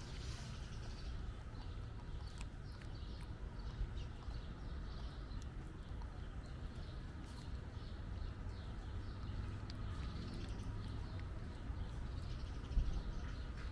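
A cat chewing wet cat food, with faint irregular smacking clicks over a low steady rumble, and one louder low thump near the end.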